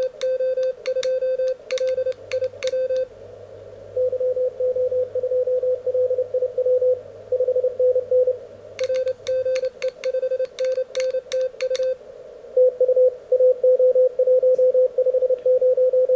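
Morse code (CW) from an Elecraft K1 QRP transceiver: a single tone of about 500–600 Hz keyed on and off in dots and dashes. During the first three seconds and again about nine seconds in it is sent with sharp clicks from the key; in between and toward the end it is received, louder near the end.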